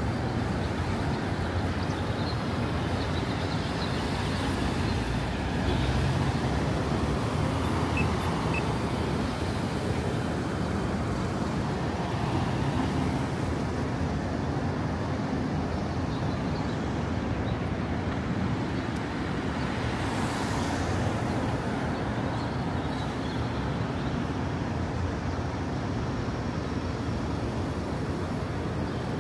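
Steady city street traffic noise from a multi-lane road, with cars passing now and then.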